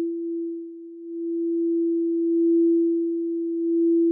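Synthesized sci-fi scanner sound effect: a single steady pure tone at a low-mid pitch that slowly swells and dips in loudness, dipping about a second in and swelling again toward the end.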